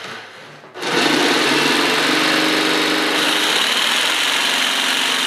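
Jigsaw cutting half-inch MDF along a traced outline. It eases off briefly, then from about a second in runs steadily through the rough cut.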